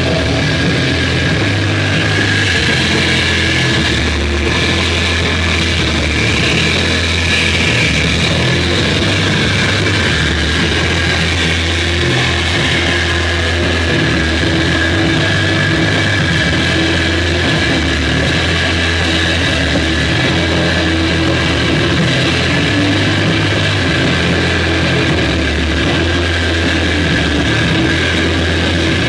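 Electric guitar played through effects pedals and a Marshall amp: a dense, distorted, unbroken wall of noise over a sustained low drone, holding an even level throughout with no drum hits.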